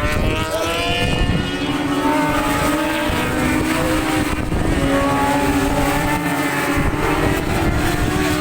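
Several racing motorcycles at full speed, their engine notes overlapping at different pitches and rising and falling as they pass.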